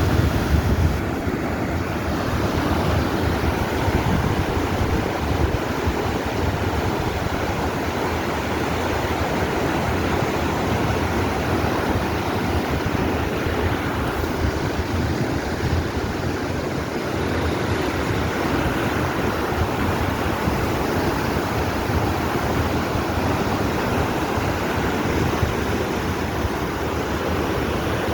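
Swollen, flooding river water rushing through the fish ladder: a loud, steady roar of churning water.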